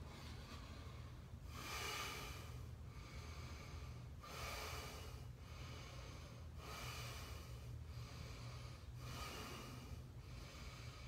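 A man breathing deeply and audibly while holding a yoga boat pose. Long breaths follow one another about every second, every other one louder, over a faint steady low hum.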